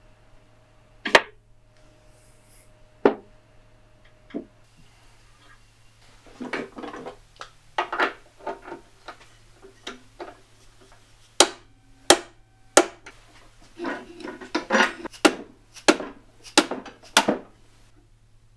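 Metal bandsaw parts being handled and worked by hand at the wheel hub: a few separate sharp knocks, then about six seconds in a busy run of clanks, clicks and taps.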